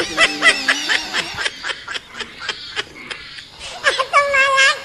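Large boar squealing: several high, wavering squeals at the start and one longer, steady squeal near the end, with sharp clicks in between.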